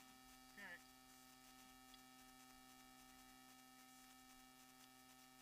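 Near silence filled by a steady electrical hum of several fixed tones, the recording camera's own electronic noise. A brief faint voice sounds less than a second in.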